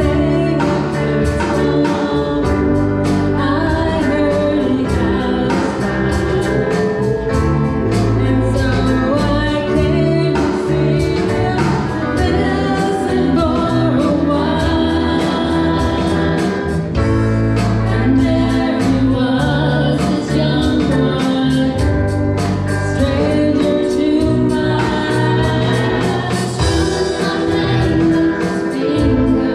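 Live rock band playing a song with singing, electric guitars and keyboard over a steady drum beat.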